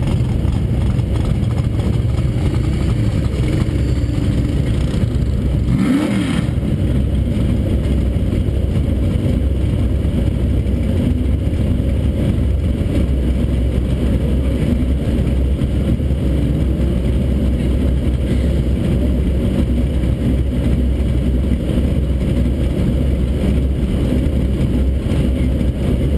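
Car engine running steadily with a low rumble, with a short rev about six seconds in.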